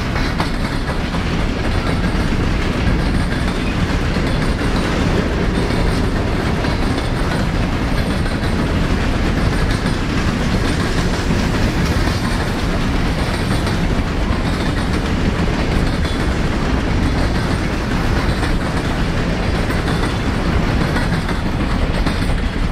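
A train of empty open-top coal hopper cars rolling past, making a loud, steady rolling noise.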